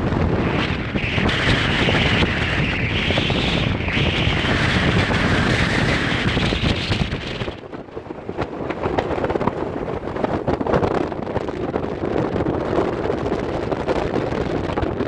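Wind buffeting the microphone on the open deck of a moving ferry: a steady, loud rush. A higher hiss rides over it for about the first half and stops a little past halfway.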